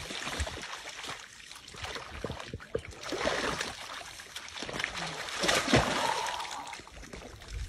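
Splashing and sloshing in shallow muddy water as young lions wade and lunge through a waterhole, uneven, with louder splashes about three seconds in and again near six seconds.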